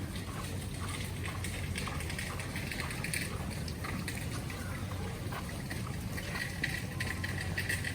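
Wet street ambience in falling snow: water dripping and trickling, with many scattered small clicks and taps over a steady low rumble.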